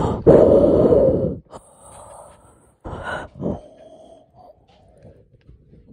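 A child's loud, breathy groan or blow right against a phone's microphone, about a second long, followed by a few shorter, softer breaths.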